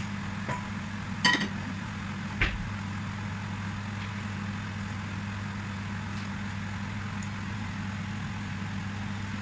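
Steady low hum and hiss from the kitchen stove while a pot steams, broken by a clink about a second in and a knock a moment later as a non-stick frying pan is set down on the gas hob's grate.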